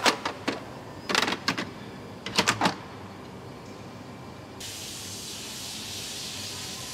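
Hard clattering knocks of parts being handled: a quick cluster right at the start, another about a second in, and another about two and a half seconds in. From about four and a half seconds a steady hiss sets in over the factory background.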